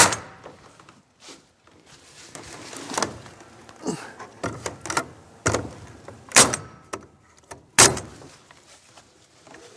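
Nail gun firing nails into a wooden fascia board: a series of sharp, irregularly spaced shots. The loudest come right at the start and about six and a half and eight seconds in.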